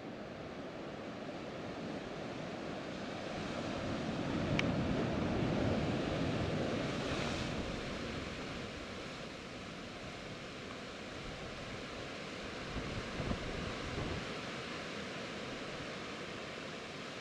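Sea surf washing and churning against volcanic rock, with wind on the microphone. A wave surges loudest between about four and seven seconds in, and there is a single short click about four and a half seconds in.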